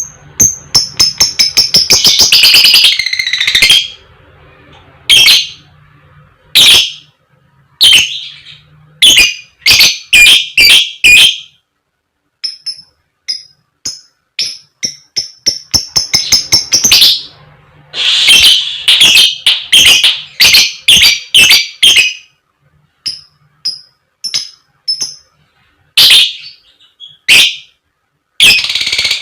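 Lovebird calling: loud, sharp, high-pitched 'koek koek' calls and 'cik cik' chirps in bursts, with rapid runs of calls near the start and again past the middle, and quieter single chirps in between.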